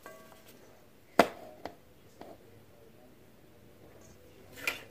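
A sharp click about a second in, then a couple of lighter clicks, from an electric hand mixer being handled as its cord is plugged in; the mixer's motor is not running.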